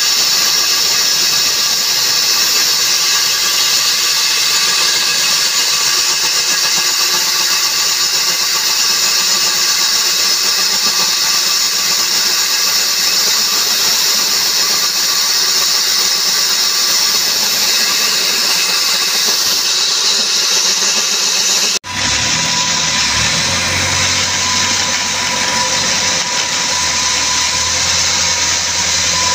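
Electric diamond core drilling machine running, its water-cooled core bit grinding through reinforced concrete, with a steady whine. About 22 seconds in the sound breaks off for a moment and resumes with a deeper hum under a steady tone.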